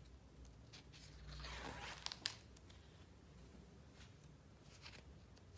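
A picture-book page being turned by hand: a soft paper rustle about a second in, ending in two sharp paper snaps, with faint handling ticks before and after.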